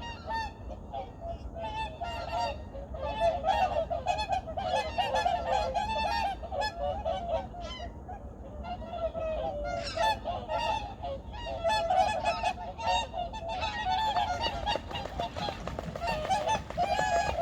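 A large flock of wild geese honking continuously, many calls overlapping one another.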